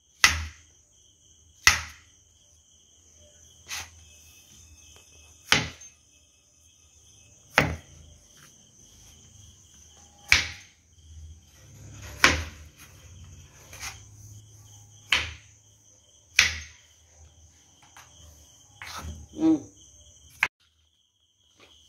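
Kitchen knife slicing button mushrooms on a wooden chopping board: a sharp knock each time the blade reaches the board, one every second or two, about a dozen in all. A faint steady high-pitched whine runs behind them.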